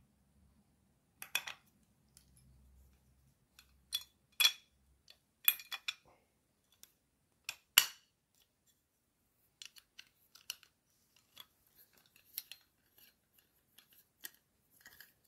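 Metal parts of a roof-moss scraper head being fitted together by hand: scattered sharp clicks and clinks, louder in the first half, the loudest about eight seconds in, then fainter, quicker ones near the end.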